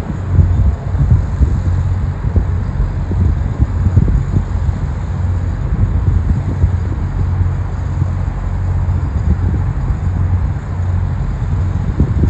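Car travelling along a city road: a steady low road-and-engine rumble, with wind buffeting the microphone in irregular gusts.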